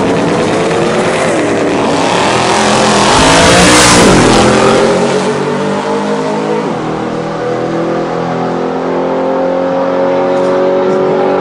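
Two drag-racing vehicles, one a Ford SVT Lightning pickup, launching at full throttle. Their engines climb in pitch and drop back at each gear change, loudest about four seconds in as they run down the strip, then ease off as they pull away.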